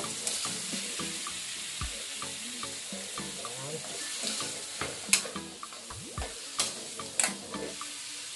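Meat sizzling in a wok just after fish sauce is poured in, stirred with a metal spatula. A few sharp clinks of the spatula against the wok come in the second half.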